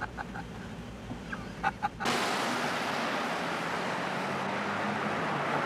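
Road-tunnel traffic noise: a loud, even rushing hiss over a low hum that starts abruptly about two seconds in. Before it there is a low rumble with a few short, high clicks.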